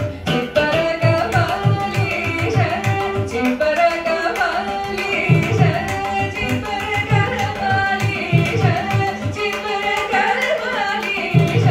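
Carnatic vocal music in raga Malayamarutam set to khanda chapu tala: a woman singing, with a violin following her line and mridangam strokes keeping the rhythm.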